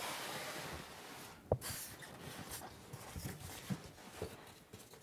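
Polystyrene foam packing blocks rubbing and creaking against each other as they are handled and pulled apart, with one sharp knock about a second and a half in, then scattered small knocks and rustles.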